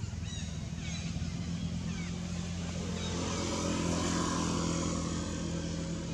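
A motor vehicle's engine running steadily close by, growing louder to a peak about four seconds in and then easing off as it passes. A few short high chirps in the first two seconds.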